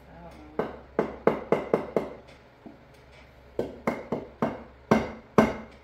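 Sharp knocks on a wooden bench, in two quick runs of six or seven strikes each with a pause between them, each strike ringing briefly.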